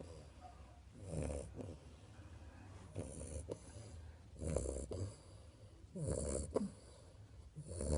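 Snoring: about five snores, one every second and a half or so.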